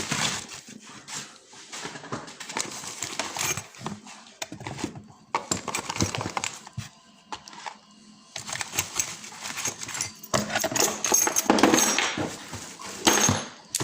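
Rummaging through an opened parcel: packaging rustling and crinkling, with scattered knocks and clicks as locks are handled. The rustling grows busier and louder near the end.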